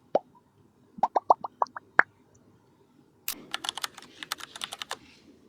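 Typing on a KIIBOOM MoonShadow V2 mechanical keyboard: a run of rapid keystrokes in the second half. Before it come a few separate sharp pitched clicks, six of them in quick succession and rising in pitch.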